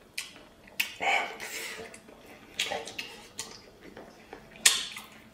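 Close-up eating sounds of a man chewing and slurping stewed pork intestines, with short hissing breaths drawn in over the chili heat and a few sharp clicks and smacks. The sharpest click comes near the end.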